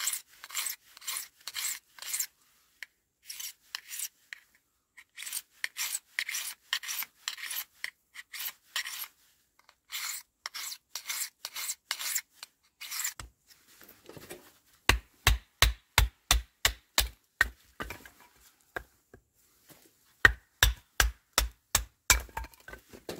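A knife blade drawn over a small hand-held sharpener in rasping strokes, about two a second. From about halfway, the knife is batoned through firewood to split kindling: a wooden baton knocks on its spine in quick runs of sharp knocks.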